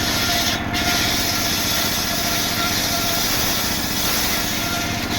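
Engine-driven saw running steadily while cutting through a coconut palm trunk, with a loud hiss from the cut. The hiss drops out briefly about half a second in.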